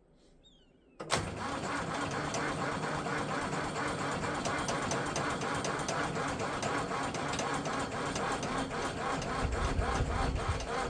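Starter cranking the Lo-Boy tractor's cold glow-plug diesel engine at full throttle. It begins with a sudden clunk about a second in and turns it over steadily, about four compression strokes a second, without the engine catching: a true cold start on a battery too weak to start it.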